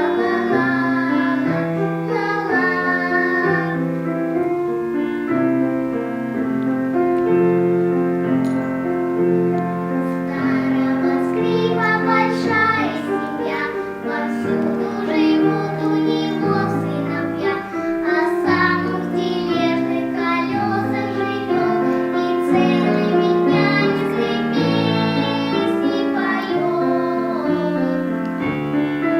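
Solo violin playing a melody of held notes with piano accompaniment.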